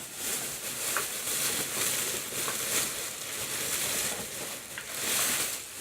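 Plastic toy packaging crinkling and rustling as it is handled, a continuous crackly rustle that eases briefly near the end and picks up again.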